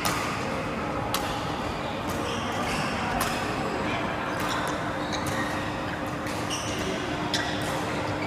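Badminton rally: rackets striking the shuttlecock in sharp clicks about once a second, over a steady low hum in the hall.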